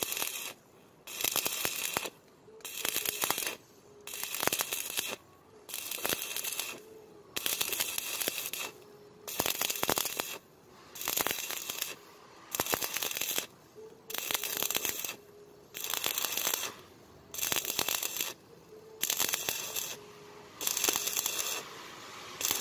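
Stick-welding arc with a 4 mm electrode on galvanized angle steel in a vertical second pass. It crackles and sputters in short bursts about once a second, going quiet in between as the arc is broken and restruck.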